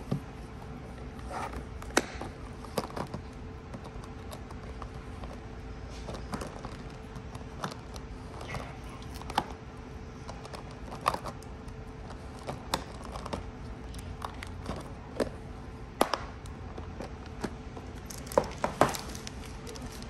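Clear plastic storage boxes handled on a tabletop: scattered sharp clicks and taps as hinged lids are opened and shut and the boxes are set down, with some crinkling of plastic packaging bags. A faint steady hum runs underneath.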